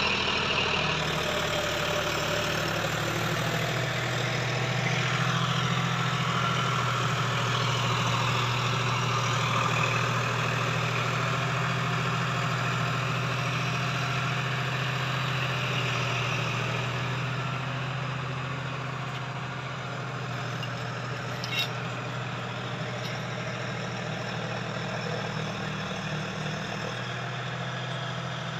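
John Deere 5310 tractor's three-cylinder diesel engine running steadily under load while it drives a Green System rotavator tilling the soil. It grows somewhat fainter past the middle, with one brief click about three quarters of the way through.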